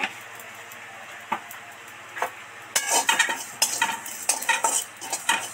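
Metal spatula stirring panch phoron seeds as they roast in a metal kadai. A couple of light clicks come first, then from about three seconds in, quick repeated scrapes of the spatula across the pan with the seeds rattling.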